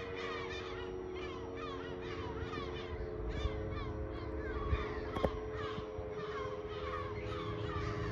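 A steady, unchanging tone, fitting a Klaxon GP8 motor siren sounding its steady alert signal some way off, under a dense chorus of bird calls, several short chirps a second. A single sharp click comes about five seconds in.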